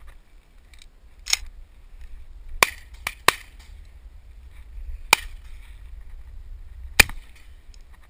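Shotgun shots from other hunters: about six sharp reports spread irregularly, two in quick succession around three seconds in, the loudest near the end.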